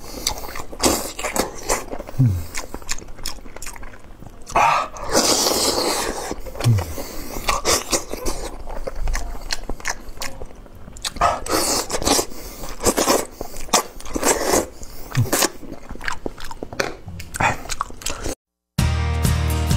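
Close-miked mukbang eating: irregular lip smacking, sucking and chewing as braised meat is bitten and gnawed off a bone by hand. The sound cuts out briefly near the end and background music starts.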